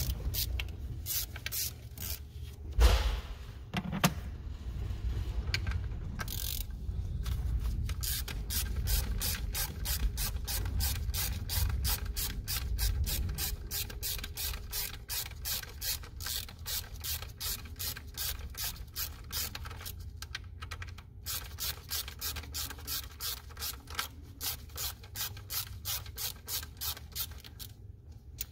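A hand ratchet clicking in an even run of about three clicks a second as the Torx T30 bolts holding the low-pressure fuel rail are backed out. A single louder knock comes about three seconds in.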